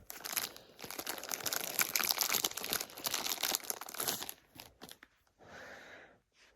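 Packaging crinkling and tearing as it is handled and pulled open, a dense crackle for about four seconds, then a few light ticks and a short soft rustle near the end.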